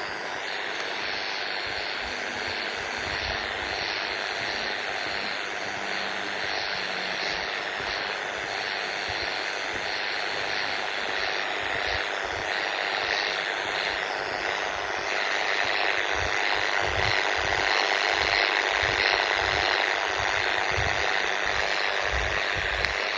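Hiss and buzz of radio interference from a handheld scanner's speaker, growing louder about halfway through, with irregular low thumps. The owner takes the interference for noise from a neighbouring house's wireless CCTV and Ring doorbell.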